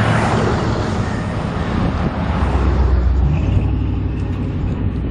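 Red fire-department pickup trucks driving past close by, their engine and tyre noise loudest at the start and fading as they move away.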